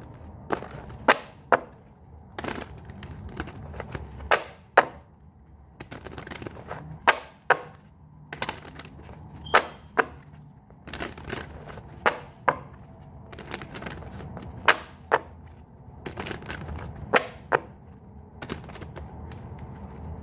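A deck of tarot cards being shuffled by hand: sharp slaps and taps of the cards, roughly one a second and often in quick pairs.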